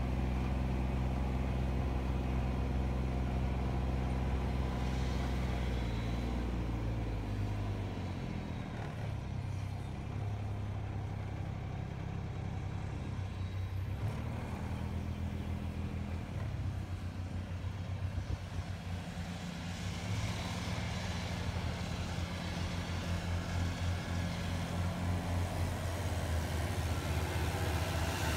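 Engine running with a steady low hum. Around six to eight seconds in, its pitch drops and it turns into an uneven pulsing beat. Over the last several seconds a rushing hiss builds alongside it.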